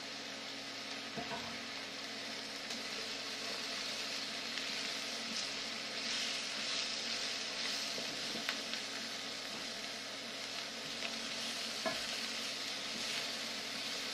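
Sliced mushrooms and onions sizzling in oil in a frying pan, stirred and pushed around with a spatula, which adds scattered light clicks and scrapes against the pan.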